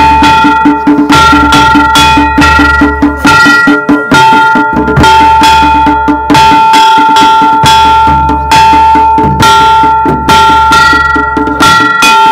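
Traditional festival percussion playing a fast, steady beat: a handheld metal percussion instrument struck with a stick, ringing on between strokes, over a low drum.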